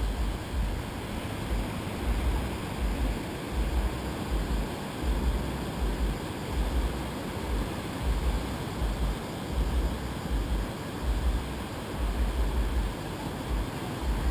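Surf breaking and washing on a sandy beach, a steady wash of noise, with wind buffeting the microphone in low rumbles about once a second.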